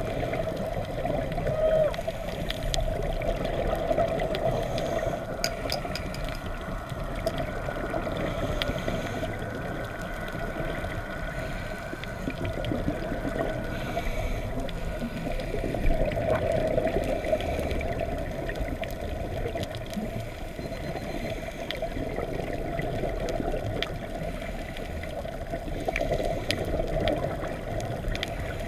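Muffled underwater ambience picked up through a GoPro Hero4 Silver's waterproof housing on a coral reef dive: a steady low rushing, with scattered faint clicks and a faint high hum between about 6 and 14 seconds in.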